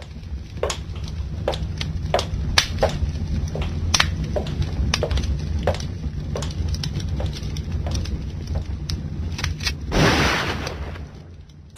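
Sound effect of many irregular sharp cracks over a steady low rumble, with a louder rushing burst about ten seconds in that fades before the end.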